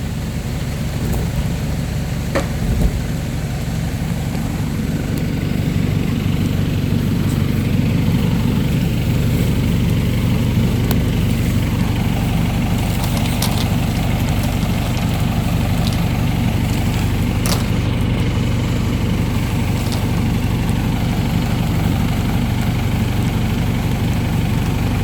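A backhoe's engine running steadily, growing a little louder a few seconds in, with a few light knocks over it.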